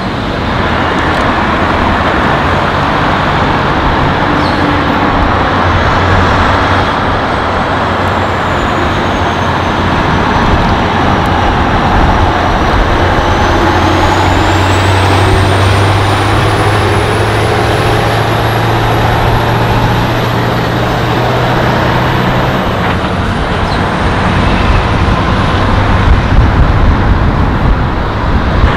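Tatra 815 truck's diesel engine running steadily under load while towing an articulated Ikarus 435 bus, with road noise from passing traffic.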